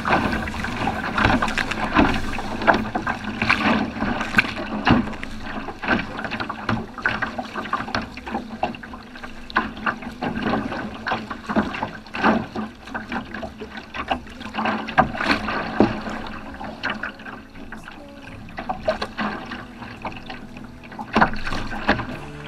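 Sea kayak being paddled: paddle blades dipping and water splashing and slapping against the hull and deck in quick, irregular splashes.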